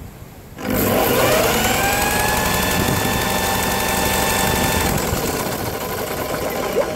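Briggs and Stratton lawnmower engine being cranked over: a whirring that starts suddenly, rises in pitch for about a second, then holds steady for several seconds before turning rougher near the end. It never fires: the engine has no spark, even with a known-good plug.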